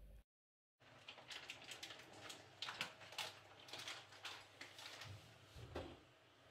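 Faint clinks and light scrapes of a spoon against dishes, many small taps spread over several seconds.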